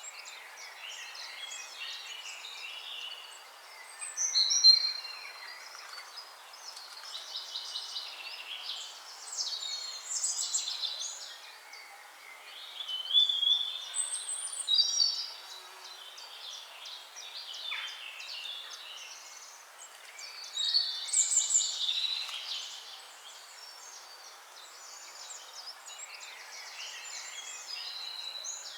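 Several songbirds singing and calling at once: a dense overlap of chirps, trills and short whistled phrases, with a few louder songs standing out now and then.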